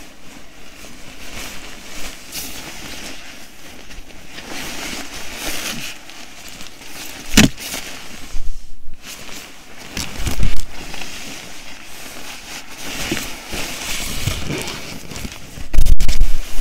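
Rustling and crinkling of items handled close to the microphone. There is a sharp click about seven seconds in, and heavy low thumps around ten seconds in and again near the end.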